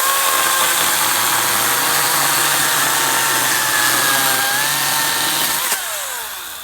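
Ryobi 40V battery-powered electric chainsaw revving up to full speed and running with a steady high whine, its pitch sagging a little now and then under load. About five and a half seconds in, the trigger is released and the motor winds down.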